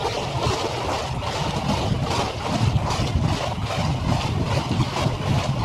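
Harbour ambience sped up five times: a steady rush of wind and water noise, with a low rumble that grows stronger from about halfway through.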